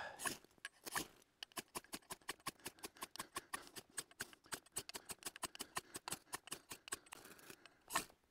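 Knife spine scraped rapidly down a ferrocerium rod to strike sparks into wood shavings: a steady run of short, sharp scrapes, about five a second, with a louder stroke about a second in and again near the end.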